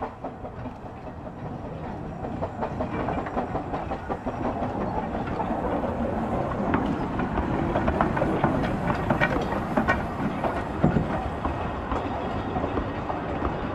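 Narrow-gauge steam locomotive, Talyllyn Railway No. 7 'Tom Rolt', and its train of carriages running slowly past, wheels clicking over the rail joints. It grows louder over the first several seconds as the engine draws level, then the carriages rumble on past.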